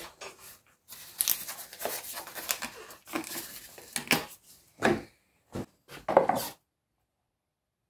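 Rustling, clicks and light knocks as a plastic oil bottle and a plastic funnel are handled and the funnel is set into the engine's oil filler neck. The sound cuts off to dead silence about six and a half seconds in.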